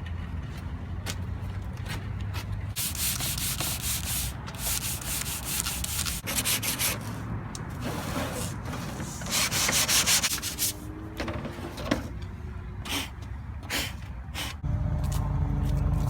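Rapid back-and-forth scraping strokes, like hand sanding, on a van wall panel, coming in stretches of a second or two over a low steady rumble. A louder, steady low hum sets in near the end.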